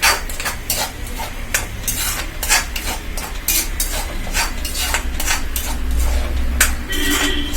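A spoon stirring in a pan, scraping and clanking against it about once or twice a second, as ground masala paste fries in oil. The paste is being sautéed until the oil separates.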